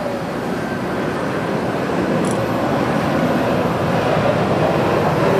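Jet engines of a twin-engine Airbus A330 airliner at takeoff power during its initial climb: steady jet noise that slowly grows louder.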